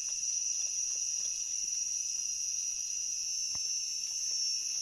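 A steady, high-pitched chorus of forest insects drones without a break. Faint, scattered scrapes come from a knife trimming soil off a mushroom stem.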